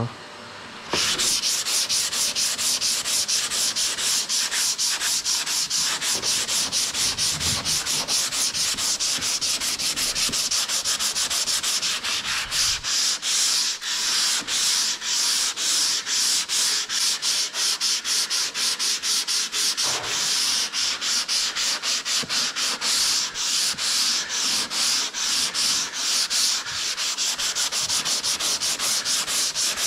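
Hand block-sanding of cured fiber body filler on a car body panel with 80-grit paper on a sanding block. The paper scrapes in quick, even back-and-forth strokes, about two a second, starting about a second in.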